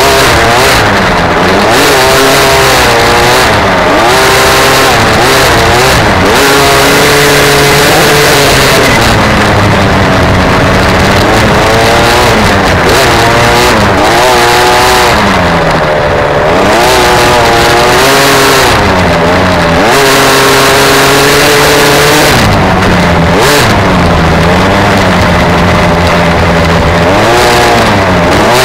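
Dirt bike engine heard close up from the bike as it is ridden around a dirt track, revving up and dropping back over and over as the rider opens and closes the throttle through the turns, with wind rushing over the microphone.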